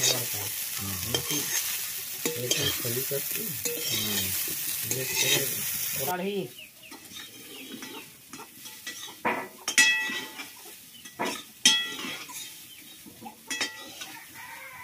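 Cauliflower florets sizzling in hot oil in a metal wok while a metal spatula scrapes and stirs them. The sizzle cuts off about six seconds in. It is followed by scattered sharp metallic clinks with a short ring, steel bowls and spatula knocking against the wok.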